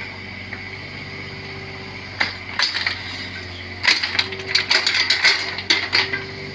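Bobcat 322 mini excavator's diesel engine running steadily, with a run of sharp metallic clanks and knocks starting about two seconds in as the machine works.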